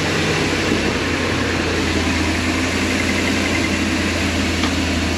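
2002 Ford E-250 van's engine idling steadily, running just after its first start since being reassembled.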